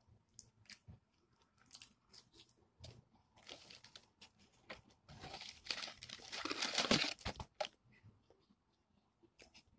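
Close-up eating sounds of fried chicken: small wet mouth clicks and chewing, then a louder spell of crunching and crinkling lasting about four seconds in the middle as the chicken is torn apart and the cardboard bucket is rummaged.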